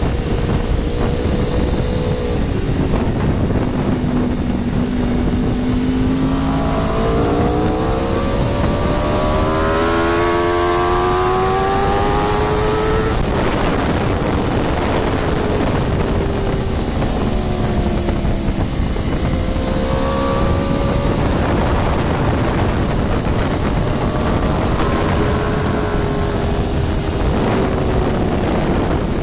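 Aprilia RSV4's V4 engine heard on board at track speed over heavy wind noise. The engine note climbs in long pulls as the bike accelerates and drops away as it slows for corners, doing this about three times.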